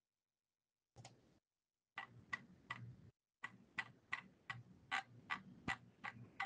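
Faint computer-keyboard typing picked up over the call line: one keystroke about a second in, then a run of about a dozen key presses at roughly three a second from about two seconds in.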